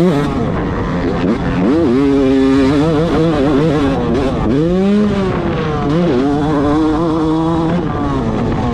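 Yamaha YZ250 single-cylinder two-stroke motocross engine revving hard and then backing off over and over as it is ridden around the track, its pitch rising and falling with the throttle and gear changes.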